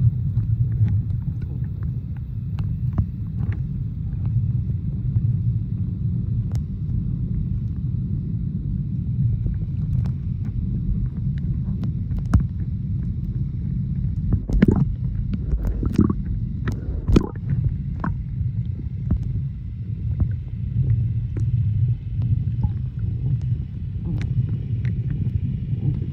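Underwater sound picked up by a submerged camera: a steady, muffled low rumble with scattered small clicks and a few sharper knocks around the middle.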